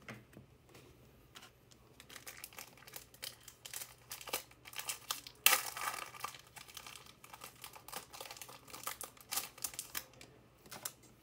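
A trading card pack wrapper being torn open and crinkled: a dense run of crackles, with the loudest tear about five and a half seconds in.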